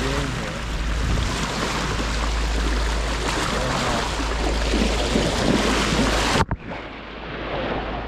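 Water rushing along a sailboat's bow and wind buffeting the microphone, a steady rushing with a low rumble. The sound breaks off abruptly about six and a half seconds in and comes back quieter.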